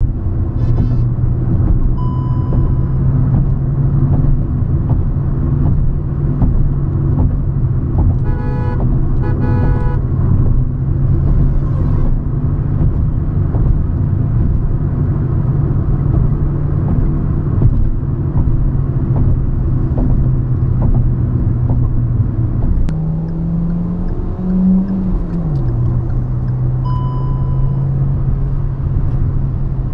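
Hyundai i20 car engine running steadily on the move, its pitch rising for about two seconds past the middle and then falling back, as in accelerating and shifting gear. Vehicle horns honk near the start and around a third of the way in, and a short electronic beep sounds near the start and again near the end.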